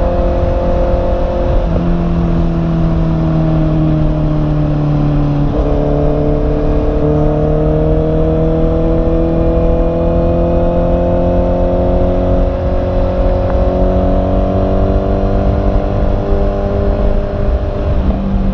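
2021 Honda CB650R's inline-four engine running under way. Its pitch changes suddenly about two and five and a half seconds in, then climbs slowly and steadily.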